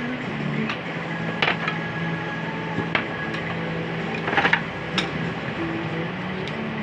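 Workshop knocks and clicks, a few sharp single ones and a quick cluster about four and a half seconds in, of wood being handled during assembly. Low background music with a slow stepping melody plays throughout.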